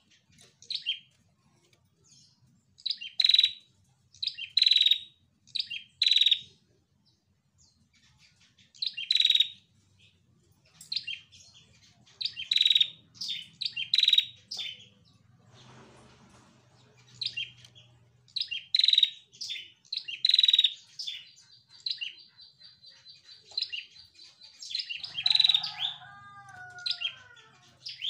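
A female prenjak, a red-headed tailorbird, calling in bursts of two to four short, sharp, high chirps separated by pauses of one or two seconds. A faint, rapid, high trill comes in just before the end.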